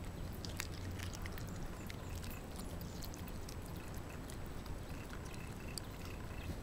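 Shiba Inu dogs licking and lapping at their food bowls: irregular wet smacks and small clicks over a low steady hum.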